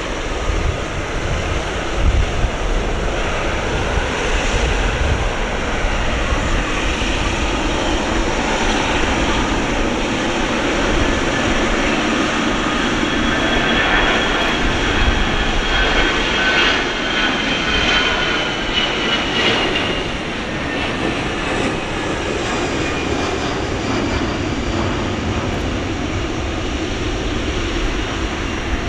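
Boeing 777-300ER's GE90 turbofan engines on a landing: continuous loud jet noise, with a whining tone that falls slightly in pitch about halfway through.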